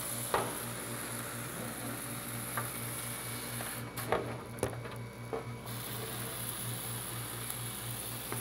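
Hand trigger spray bottle spritzing diluted bactericide onto a split air conditioner's evaporator coil: a few short sprays, over a steady low hum.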